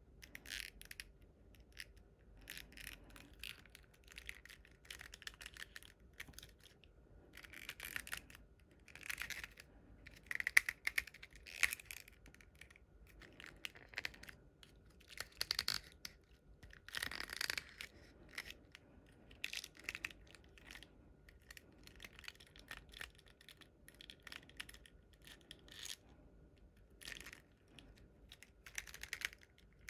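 Hands handling a plastic Godzilla action figure and its packaging: irregular light clicks, taps and short rustles of plastic parts and wrapping.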